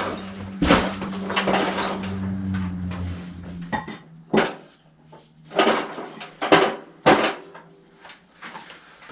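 A handful of sharp knocks and clanks, about five in all, from parts and tools being handled while working on a snow blower, with a low steady hum under the first few seconds.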